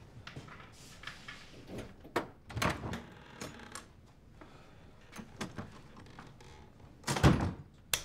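Someone moving about a dark room: scattered knocks and shuffles, then a door shut with a heavy thud about seven seconds in. A sharp click of a wall light switch follows right at the end.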